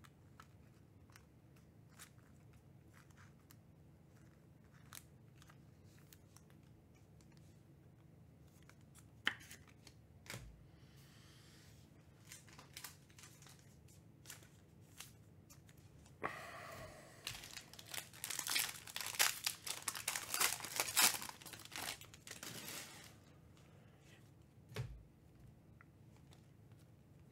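A foil trading-card pack being torn open and its wrapper crinkled. This is a dense stretch of tearing and crinkling that starts about two-thirds of the way in and lasts several seconds. Small clicks of cards being handled come before it, and there is a single soft knock near the end.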